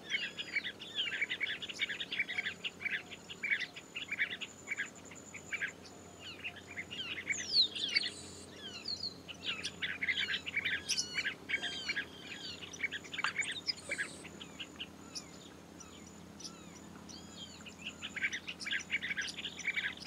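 A pair of masked water-tyrants calling, with rapid series of short, sharp chirps at the start and again near the end, and scattered sweeping whistled notes in between.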